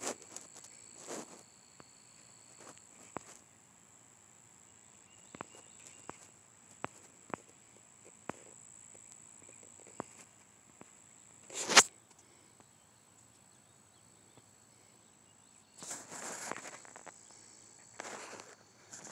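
Handling noise from a phone: scattered faint clicks and taps, one louder knock about two-thirds of the way through, and a few bursts of rustling near the end, over a faint steady high whine.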